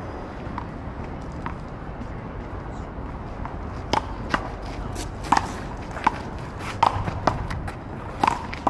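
Paddleball rally: a string of sharp smacks as the ball is struck with paddles and hits the wall, irregularly spaced, starting about four seconds in. Before that, only a couple of faint knocks over steady outdoor background noise.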